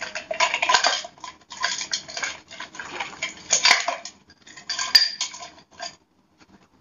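A hand rummaging through a box of toiletry bottles and small containers, the items clinking and knocking against each other in quick, irregular clatters that die away about six seconds in.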